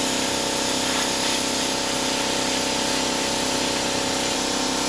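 Plasma cutter cutting through the steel wall of an old fuel tank: a steady, loud hiss of the cutting arc and air, unbroken throughout.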